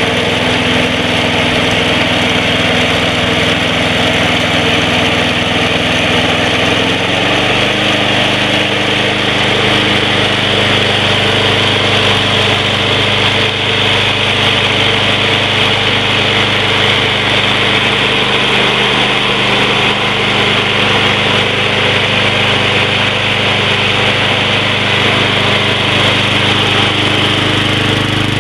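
Snapper Ninja mower's 6 hp Briggs & Stratton engine running steadily, its speed stepping up slightly about seven seconds in.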